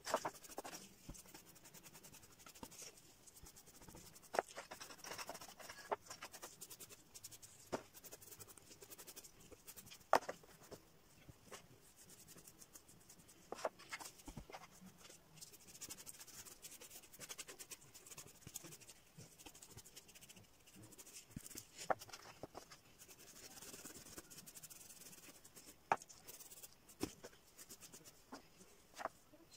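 Paintbrush bristles stroking water-based enamel onto cardboard pieces: a faint scratchy brushing, with scattered sharp clicks and taps about every few seconds.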